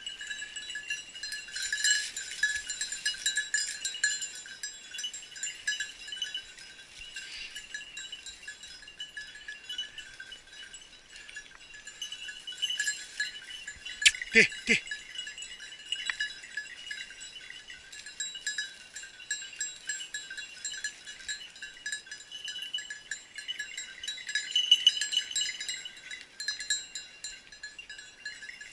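Small bells on hunting dogs' collars jingling and ringing continuously as the dogs move through the brush. Two short, loud cries break in about halfway through.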